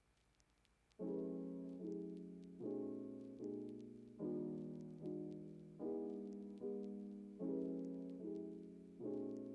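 Background piano music. After a second of near-silence a new piece begins, with chords struck at a slow, steady pace, each one fading before the next.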